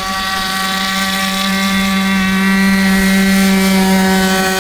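Radio-controlled model boat's two-stroke nitro engine running flat out, a steady high-pitched whine that holds its pitch and grows slightly louder toward the end.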